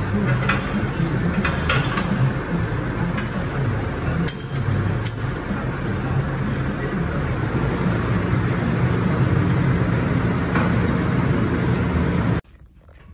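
Tractor diesel engine running steadily, with scattered metallic clinks and knocks as the irrigation pump frame is hitched on. The sound cuts off abruptly near the end.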